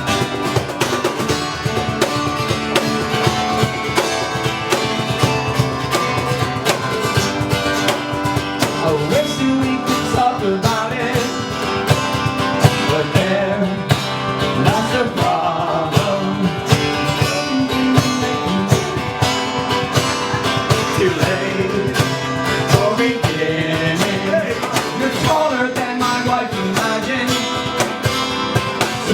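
Live band playing a song: guitar over a steady beat, with a voice singing from about ten seconds in.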